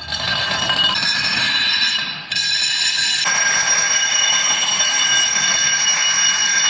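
Metal being ground or cut with a power tool: a steady high-pitched screech over a hiss, with a short break about two seconds in.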